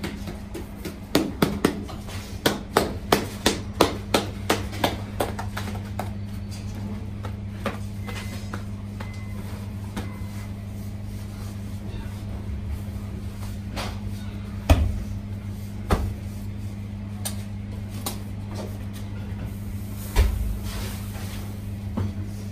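Hands slapping and patting flatbread dough to stretch it for the tannour: a quick run of about a dozen sharp slaps in the first few seconds, then scattered taps and a few dull thumps. A steady low hum runs underneath.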